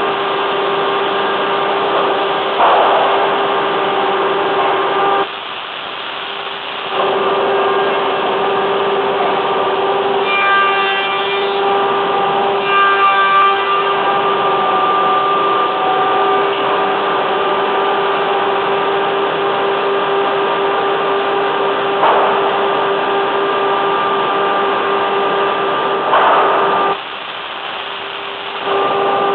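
Kadis plank-jointing machinery (TPK-1200 press and DKK-1 gluing machine) running: a steady machine noise with a constant mid-pitched tone. It is broken by a few short louder bursts, two brief drops in level, and a warbling high tone twice around the middle.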